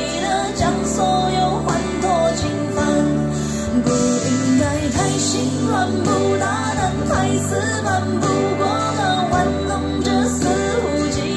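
Mandarin pop ballad playing: a female voice carries a wavering melody over a steady band accompaniment with guitar.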